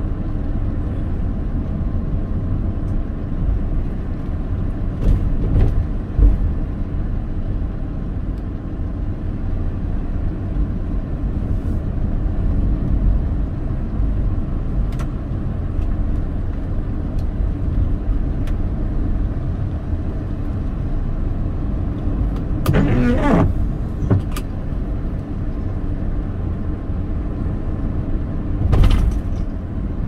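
Car driving along a winding road, a steady low engine and tyre rumble, with a short louder burst a little past two-thirds of the way through.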